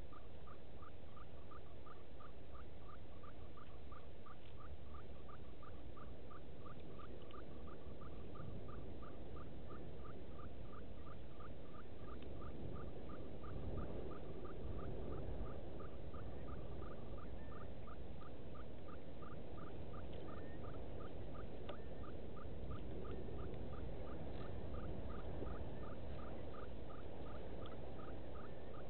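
A small animal calling one short, slightly rising note over and over, evenly about two and a half times a second, over a low outdoor rumble that swells a little about halfway through.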